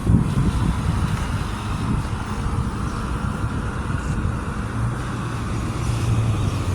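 Road traffic: vehicles passing on a street with a continuous low rumble, and a steady low engine hum joining in the last couple of seconds.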